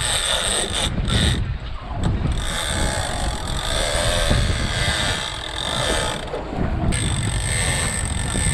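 Shimano Tiagra 30 Wide lever-drag reel running with a steady high ratcheting buzz as a southern bluefin tuna takes line against the drag, dropping out briefly twice. A low rumble of wind and boat runs underneath.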